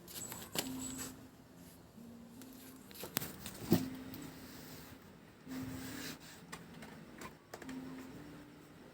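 Light scattered clicks and taps, the strongest a sharp knock a little before the middle, over a faint low hum that steps between a few pitches.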